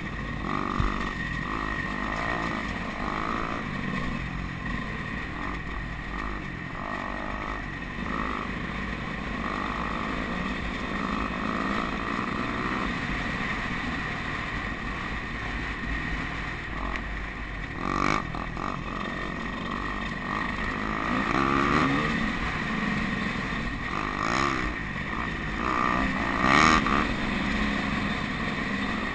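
Dirt bike engine heard from the rider's helmet while riding a narrow dirt trail, the revs rising and falling repeatedly as the rider opens and closes the throttle. A short knock about eighteen seconds in.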